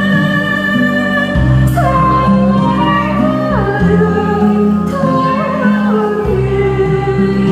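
A woman singing a Korean trot song into a microphone over instrumental accompaniment with a steady bass line. She holds long notes, each stepping down in pitch into the next.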